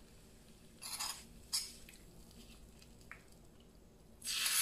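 A metal spoon scraping fried tempering out of a small pan into a clay pot of curry: two brief scrapes about a second in and a light clink near three seconds. Just past four seconds a loud, steady hiss starts suddenly.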